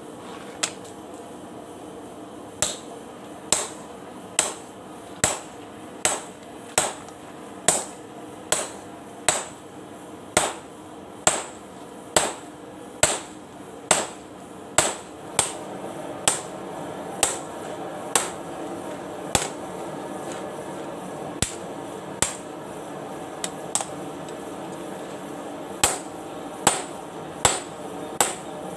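Hammer blows on steel, forging a used bearing race into a golok blade: sharp ringing strikes a little more than once a second, with a short break of lighter, sparser hits near the end. A steady hum runs underneath.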